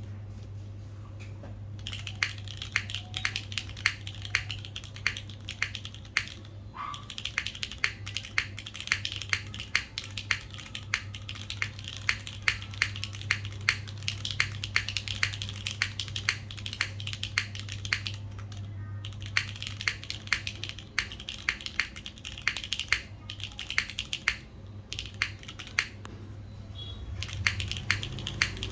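Typing on a custom mechanical keyboard with lubed and filmed Cherry MX Black linear switches in an aluminium plate, with GMK keycaps: a rapid, steady stream of keystrokes that begins about two seconds in and breaks off briefly a few times. A steady low hum runs underneath.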